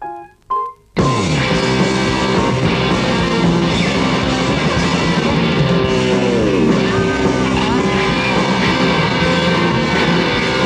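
A few short, separate notes, then loud rock music with electric guitar starts about a second in and plays on steadily, with a couple of falling swoops in pitch midway.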